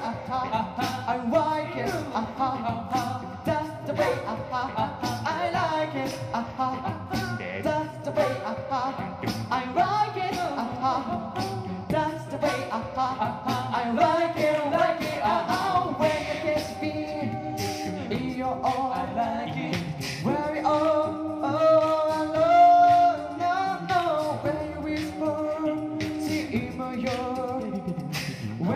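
Male a cappella group singing in close harmony over a PA, with vocal percussion clicking beneath the voices. The voices hold a long sustained chord about two-thirds of the way through.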